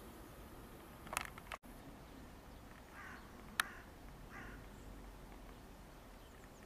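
A few short, spaced-out bird calls over faint outdoor background, with a single sharp click about halfway through.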